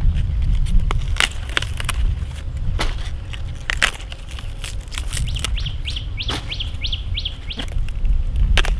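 Crisp clicks and cracks of fresh leafy brassica stalks and leaves being handled by hand. About halfway through, a small bird sings a quick run of sharp chirps.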